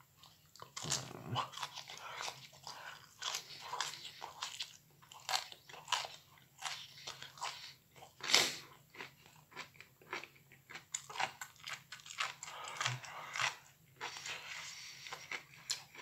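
Close-up chewing and crunching of microwaved broccoli florets, in short irregular bites and mouth noises.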